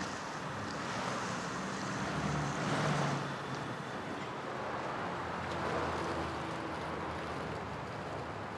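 Road traffic going by: a steady rush of passing cars, with one vehicle passing louder about three seconds in and another swell around six seconds.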